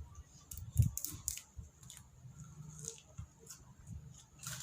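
Close-up eating sounds: chewing with scattered small clicks and soft low thumps, one sharper tick about a second in.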